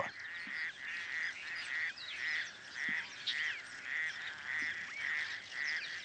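Male raucous toad giving its mating call: short hoarse croaks repeated about twice a second.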